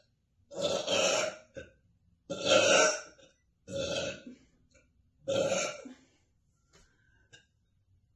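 A young woman burping four times in a row, each burp under a second long with short pauses between.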